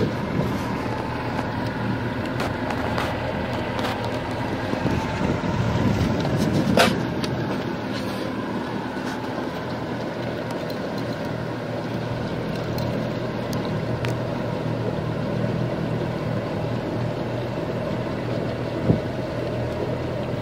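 Carolina Skiff's outboard motor running steadily underway, with wind and water noise from the moving hull. Two sharp knocks stand out, one about a third of the way in and one near the end.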